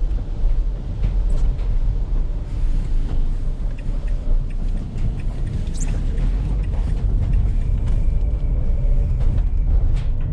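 Turbocharged van driving along, heard from inside the cab: a steady low engine and road rumble with a few small rattles.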